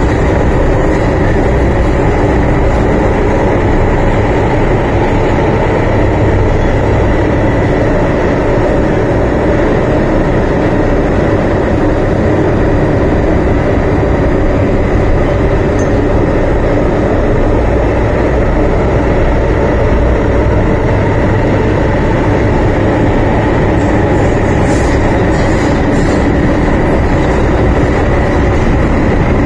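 MTR M-Train electric multiple unit heard from inside the carriage while running at a steady speed: a loud, even rumble of wheels on rail and running gear, with a faint steady high tone.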